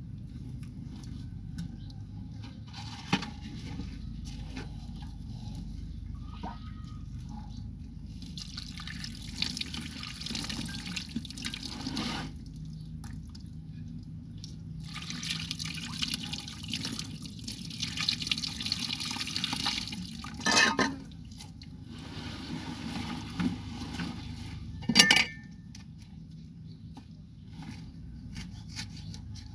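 Hands pulling at and breaking rotted banana roots: crackling and rustling in stretches, with a few sharp snaps, the loudest one near the end.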